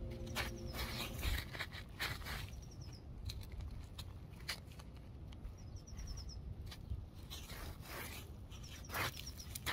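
Crackly scrapes and crunches of bare feet shifting on gritty, gravelly ground close to the microphone, with a small bird chirping three short quick runs of high notes.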